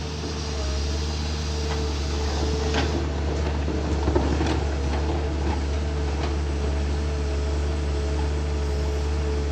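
Long-boom Komatsu excavator's diesel engine running steadily under a constant whine, with a few sharp clanks about three to five seconds in.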